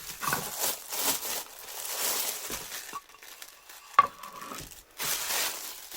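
Protective packing material rustling and crinkling as an item is handled and unwrapped, in irregular bursts. About four seconds in there is one sharp clink with a short ring.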